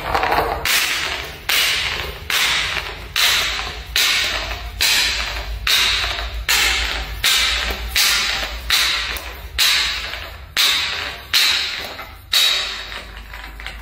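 Plastic bottle with liquid in it tumbling down marble stairs, striking step after step with a sharp slap about every 0.8 seconds, each hit fading out before the next; about fifteen hits, the last near the end.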